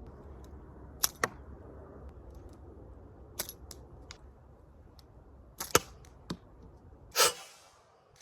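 Slingshot being shot at a bottle: several short, sharp snaps from the rubber band and shots, some coming in close pairs, and a longer clatter about seven seconds in.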